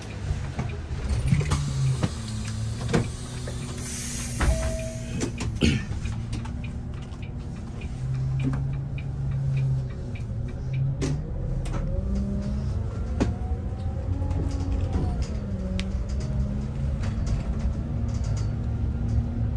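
Bus running, heard from inside the passenger cabin: a steady low hum with scattered clicks and rattles, and a short hiss a few seconds in. From about twelve seconds in, a whine rises and then falls in pitch as the bus drives on.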